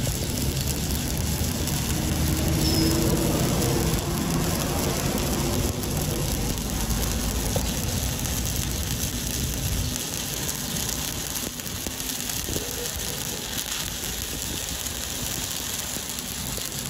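Shielded metal arc (stick) welding arc crackling steadily as a lengthened electrode runs a bead along a steel plate.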